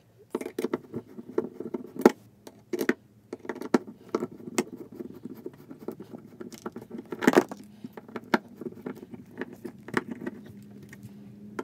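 Irregular clicks, taps and scraping of hands handling a plastic RV LP gas and carbon monoxide monitor as it is fitted into its wall opening and tightened down, over a steady low hum.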